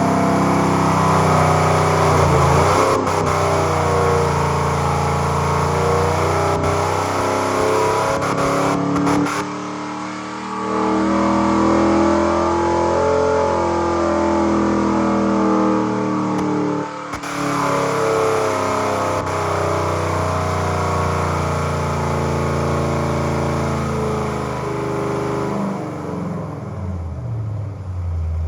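383 cubic-inch small-block Chevy V8 with a flat-tappet cam running at high rpm on an engine dyno. The revs dip briefly about ten seconds in and again near seventeen seconds, then fall away near the end.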